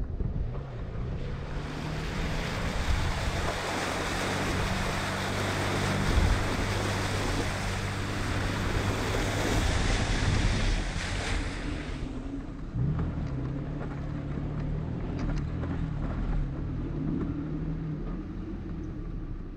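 Vehicle fording a shallow stream: water splashing and spraying off the tyres as a loud hiss over the steady engine note. The splashing stops about twelve seconds in as the vehicle climbs out onto dry dirt road, leaving the engine and tyres running on dirt.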